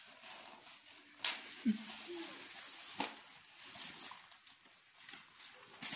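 Foil wrapper of a chocolate surprise ball crinkling and tearing as it is unwrapped by hand, with three sharp snaps spread through it.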